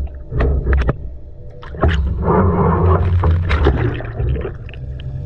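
Muffled underwater sound on the camera's microphone: a steady low rumble, with rushing, bubbling water noise that swells for about two seconds in the middle.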